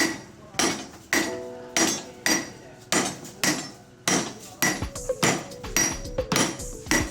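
Hand hammer striking hot steel on an anvil while forging a knife, at about two blows a second, each with a short metallic ring. In the second half the strikes come faster, with lighter taps between the heavier blows and a clearer ringing from the anvil.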